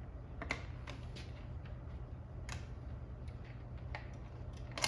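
A few scattered small clicks and ticks of a T25 Torx driver working on the bolts that hold a motorcycle's side air deflectors, over a steady low hum; the sharpest click comes near the end.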